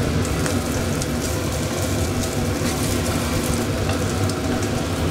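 Egg-coated slices of luncheon meat sizzling and crackling in hot oil in a nonstick frying pan, over a steady low hum.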